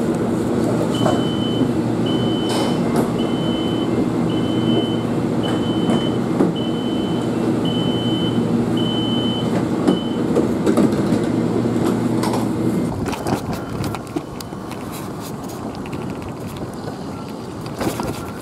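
Steady hum inside a light-rail car, with a run of about nine short, evenly spaced high electronic beeps, roughly one a second. About two-thirds of the way through, the hum gives way to a quieter stretch with scattered sharp clicks.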